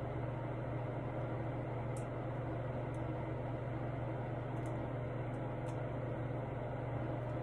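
Steady low hum with an even hiss of room noise, and a few faint ticks.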